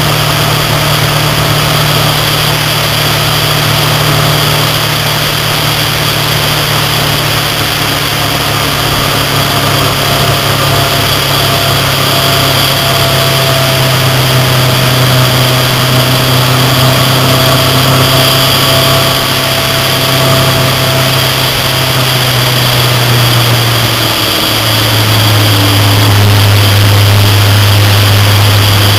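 Motorcycle engine running at road speed with steady wind and road noise. The engine note drops suddenly about 24 seconds in and runs a little louder after that.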